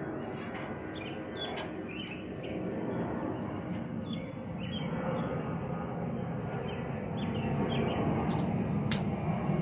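Birds chirping over a steady low rumble that grows louder near the end, with a few sharp clicks.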